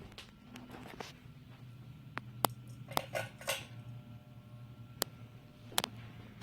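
About eight scattered sharp clicks and light clinks, a cluster of them with a brief ring around the middle, over a faint steady low hum.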